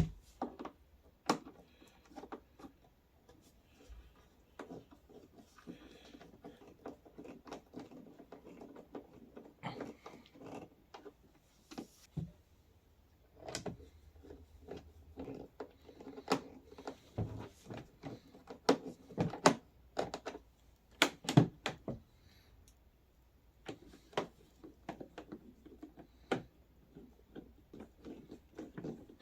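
Hard plastic ride-on car body parts being handled while the windshield is screwed on: scattered clicks, taps and knocks, with short bursts of rattling, the loudest knocks coming about two-thirds of the way in.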